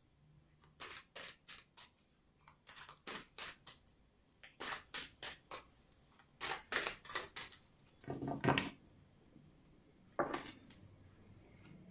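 Tarot cards being shuffled by hand, overhand: quick clusters of crisp card flicks and slaps. There are two louder knocks about eight and ten seconds in.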